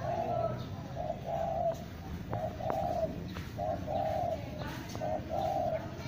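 Spotted dove (tekukur) cooing: a run of repeated low coo phrases, each a short note followed by a longer one, about one phrase every second and a bit.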